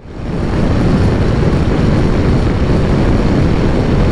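Riding noise on a Honda NC750 motorcycle at road speed: a steady rush of wind over the helmet-mounted microphone with engine and road noise underneath. It fades in over the first half second.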